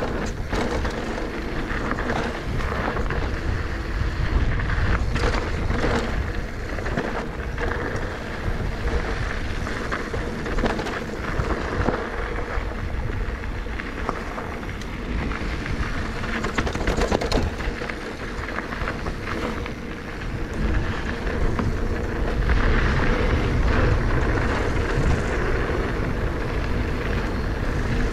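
Electric mountain bike, a Giant Trance E+ 2, riding downhill on a dirt trail: a steady low rumble of riding noise with frequent sharp knocks and rattles over the bumps.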